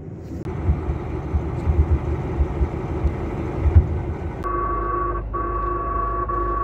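Low, uneven rumbling roar following a Pantsir-S1 surface-to-air missile launch, heard from inside a nearby vehicle's cab. About four seconds in it cuts abruptly to a steady electrical hum with a high steady whine.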